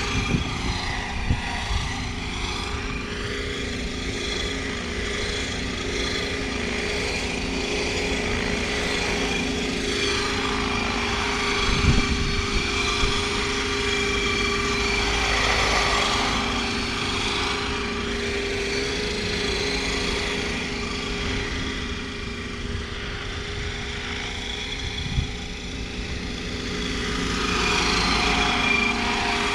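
Radio-controlled scale MD 520 helicopter flying, its Aerosound RC sound module playing a steady turbine-like whine over the whirr of the rotors. The sound swells and fades as the model moves nearer and farther away.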